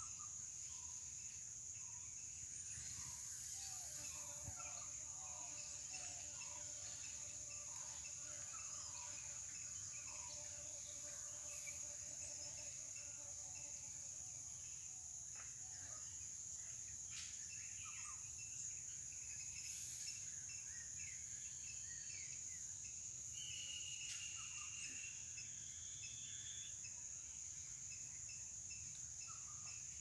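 Faint outdoor ambience: a steady high-pitched insect drone, with scattered short bird chirps over it.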